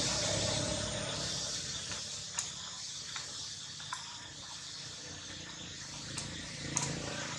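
Steady background hiss, slowly fading, with a few faint sharp clicks scattered through it.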